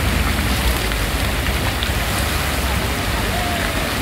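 Ornamental fountain jets splashing down into a pool: a steady, rain-like hiss of falling water over a low rumble.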